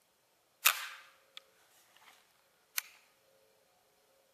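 Sharp metallic clicks from a Hall flintlock breech-loading rifle's lock and breech mechanism: a loud snap under a second in, a faint click after it, and a second snap near three seconds.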